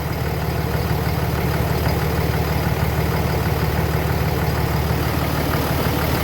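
Car engine idling steadily with the AC compressor engaged and pumping fine while the system takes on R134a refrigerant.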